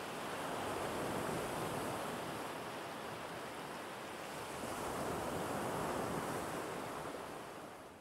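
Sea waves washing onto a sandy beach: a steady surf noise that swells twice and fades out near the end.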